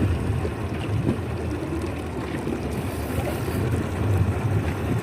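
Boat motor idling in neutral, a steady low hum, with wind noise on the microphone.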